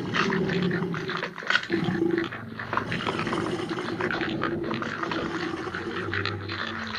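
Dinosaur sound effect: a continuous rough, throaty growl with a crackly, grating edge, dipping briefly a little after two seconds in.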